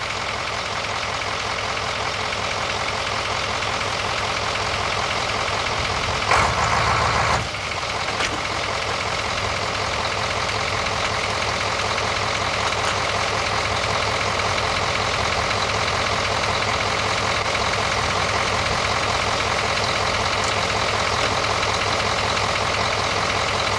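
Material handler bucket truck's engine running steadily, powering the boom hydraulics while the boom and lift arm are positioned, with a brief louder stretch about six seconds in.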